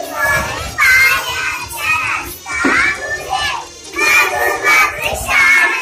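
A group of young girls singing together in high voices, phrase after phrase.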